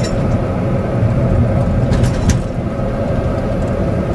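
Steady engine and tyre noise inside a moving car's cabin, with a sharp knock a little over two seconds in.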